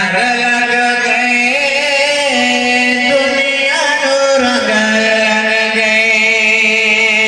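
A solo male voice reciting a naat, unaccompanied, in long held melismatic notes with small wavering turns, dropping to a lower note a little past halfway.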